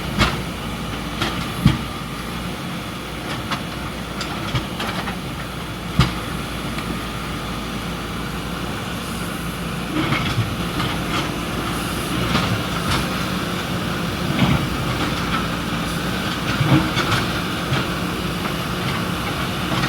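Backhoe loader's diesel engine running steadily under work, with scattered sharp knocks and clanks, the loudest about two and six seconds in.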